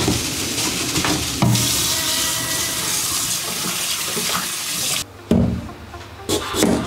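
Kitchen tap running hard onto raw pork rib pieces in a stainless steel colander bowl as they are rinsed by hand, a steady rush of water that stops about five seconds in. A couple of dull thumps follow near the end.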